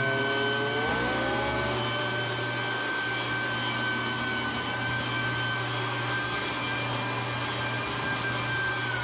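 Shop vacuum motor running steadily with a high whine; its pitch rises about a second in, then holds.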